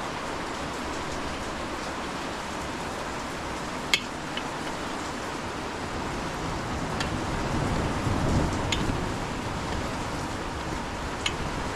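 Heavy rain falling steadily, with a few sharp clicks, the loudest about four seconds in, and a brief low rumble swelling about eight seconds in.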